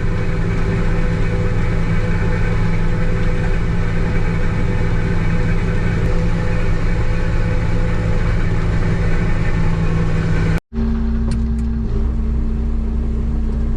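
New Holland TR89 combine harvester running steadily while harvesting, a constant engine and threshing drone. About ten and a half seconds in it breaks off for an instant and a steady machine drone resumes with a higher hum in it.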